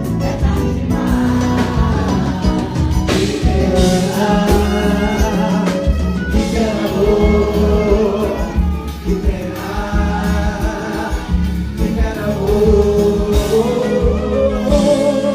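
Pagode band playing with several voices singing together over a strong bass.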